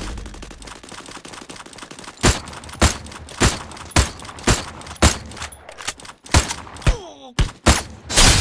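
A series of sharp knocks or impacts, regular at about two a second for a few seconds and then more irregular, with a short falling whistle-like glide near the end.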